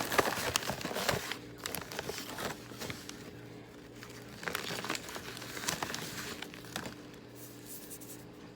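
Packaging crinkling and crackling as it is handled close to the microphone. The crackles are busiest in the first second or so, then come in scattered bursts, over a faint steady hum.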